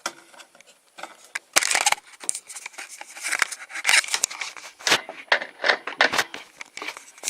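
Irregular plastic clicking, knocking and scraping as the refrigerator's control board and its housing clips are pushed and pried at by hand, with a handful of sharper knocks between about one and a half and six seconds in.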